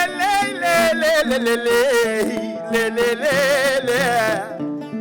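Live West African song: a singer's ornamented, wavering vocal line over a plucked string instrument accompaniment.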